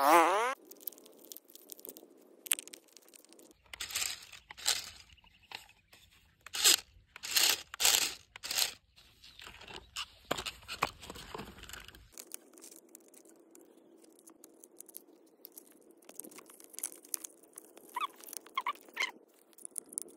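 A brief warbling sound right at the start, then irregular crunches and clacks from about four to twelve seconds in as the plastic toy RC cars are picked up and handled. After that comes a faint steady hum with a few light clicks near the end.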